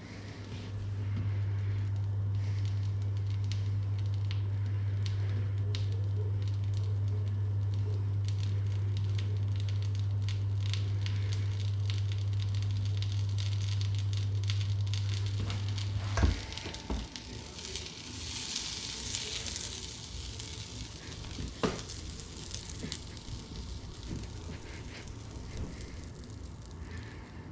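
Food sizzling and crackling in a hot pan over a steady low hum that cuts off suddenly with a knock about sixteen seconds in. The sizzling carries on after that, with a louder hissing spell and another sharp knock a few seconds later.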